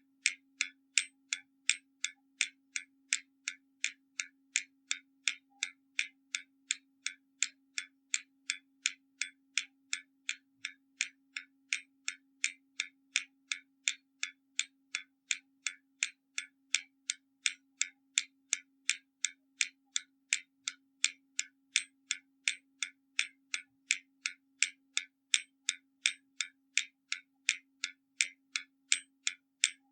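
Hermle mechanical skeleton clock ticking steadily, about two crisp metallic ticks a second, alternating tick and tock from its escapement.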